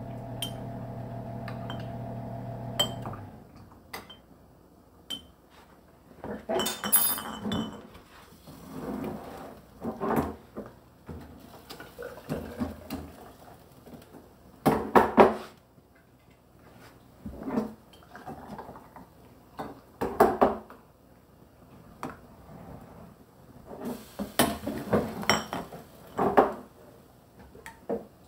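Metal ladle scraping and knocking in a stockpot and clinking on a plastic canning funnel and glass mason jars as tomato soup is ladled into jars, with metal tongs clinking in a steel saucepan. The clinks and scrapes come in separate bunches every two or three seconds.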